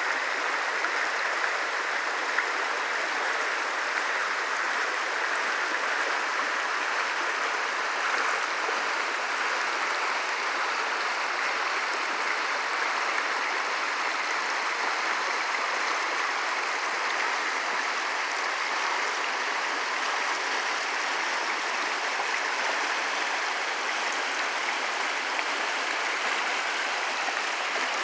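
Shallow rocky river rushing over riffles and small rapids, a steady, unbroken rush of water.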